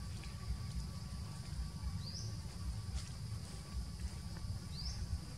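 Outdoor ambience: a bird gives a short rising chirp twice, about two and a half seconds apart, over a steady high insect drone and a constant low rumble.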